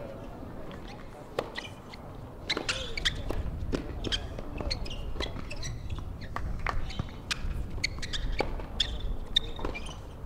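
Tennis rally on a hard court: sharp racquet hits on the ball and ball bounces, one every second or so, with birds chirping in the background.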